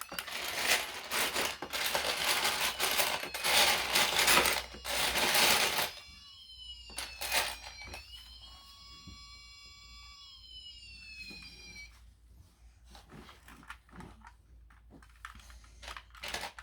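A battery-powered toy aerial-ladder fire truck playing its electronic sound effects. A loud, crackly hiss comes and goes for about six seconds, then faint electronic tones glide downward for a few seconds like a siren. Scattered clicks from the plastic toy follow.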